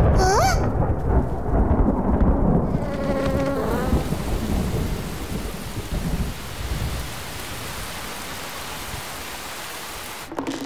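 Thunderstorm sound effect: a long low rumble of thunder over the first few seconds, then steady heavy rain hissing, slowly easing off.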